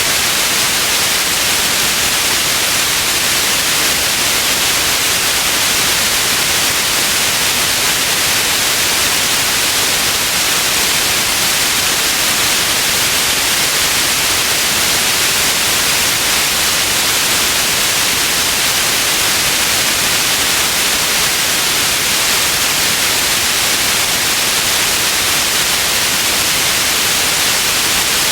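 Steady white noise: an even, unchanging hiss, brightest in the upper range, with no other events.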